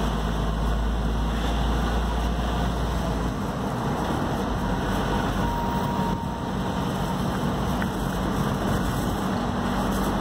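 Car running along a road, heard from inside the cabin: a steady mix of engine and tyre noise with a low rumble, the deepest part of which eases about three seconds in.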